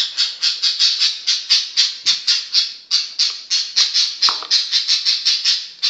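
Steady, rhythmic shaker-like rattling, about five to six strokes a second, that cuts off abruptly near the end.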